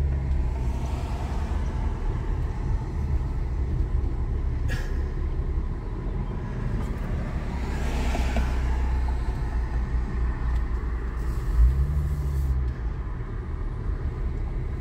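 Car engine and road rumble heard from inside the cabin while driving slowly, steady and low, with a louder swell of noise about halfway through and a single sharp click about a third of the way in.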